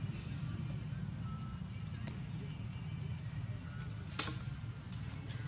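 Insects chirping in a steady, fast pulse of about five beats a second, over a low steady rumble. A brief high falling sweep just after the start and a single sharp click about four seconds in.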